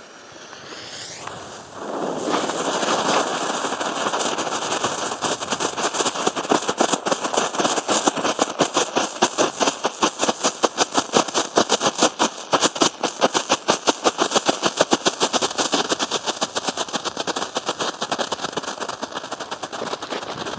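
Small ground firework burning on the ice: after a short fuse sputter, it sets off a fast, steady run of sharp crackling pops, several a second, that goes on for nearly twenty seconds and eases slightly near the end.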